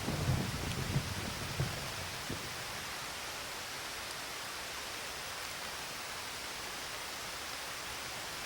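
Steady rain hiss, with the tail of a thunder rumble dying away over the first two seconds.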